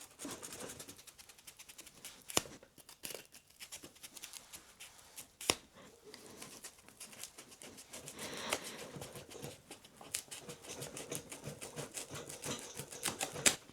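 Multitool knife with a VG10 steel blade sawing through thick rope, its fibres parting in a dense run of small crackling clicks with a few sharper snaps, busier in the second half.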